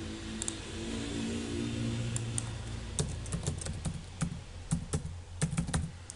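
Typing on a computer keyboard: irregular keystroke clicks from about halfway through. A steady low hum runs under the first half.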